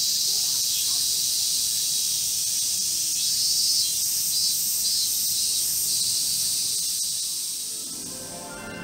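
Chorus of summer cicadas: a steady, high-pitched shrill hiss, with a pulsing song repeating about three times a second over it partway through. It fades in the last second.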